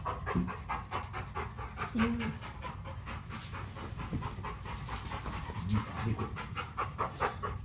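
Labrador retriever panting quickly and evenly, a steady run of short breaths.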